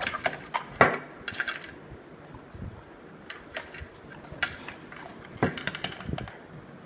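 Hands clinking and tapping on a plate of biscuits and a drinking glass on a table: a quick run of sharp clicks in the first second or two, the loudest about a second in, then scattered single clicks.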